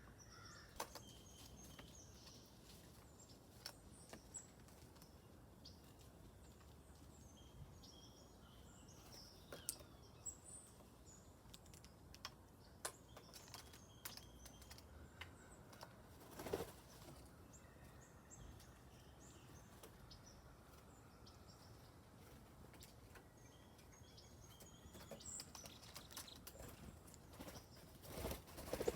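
Small songbirds chirping faintly and intermittently, with scattered sharp clicks. There are two brief louder flutters, one about midway and one near the end.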